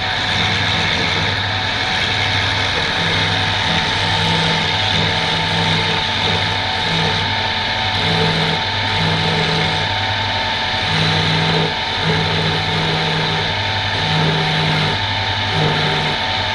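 Woodworking machine's motor running steadily, with a low hum that keeps coming and going.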